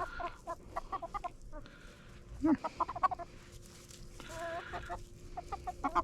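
Hens clucking in quick runs of short notes, with one longer drawn-out call about four seconds in.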